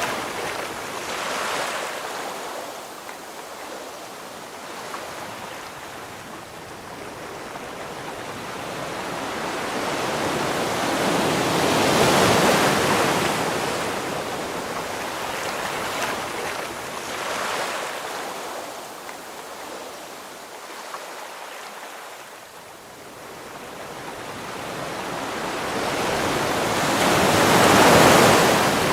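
Ocean waves breaking on the shore: the surf swells slowly to two large crashes, one near the middle and one near the end, with quieter wash between.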